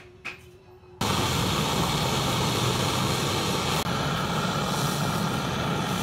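Gas torch flame burning steadily, cutting in suddenly about a second in, as it heats a glass rod to melt it into a mould for a statue's eyes.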